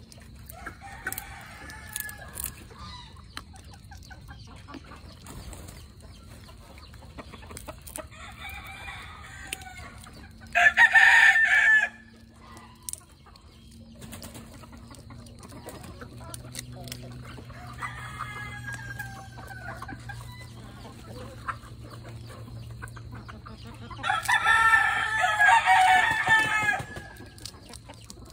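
Chickens calling: roosters crowing several times with clucking between, the loudest crow a little under a third of the way in and a long one of about three seconds near the end.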